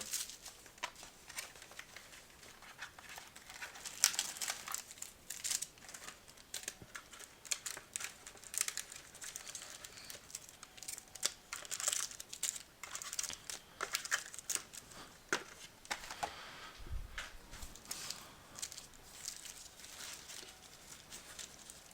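Trading-card packaging being torn open and handled: irregular crinkling, rustling and tearing of the box and pack wrappers, with a dull bump about seventeen seconds in.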